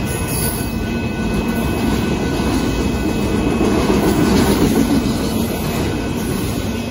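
Union Pacific auto train's autorack freight cars rolling past over a road grade crossing: a steady, loud noise of wheels on rail, swelling slightly about four seconds in.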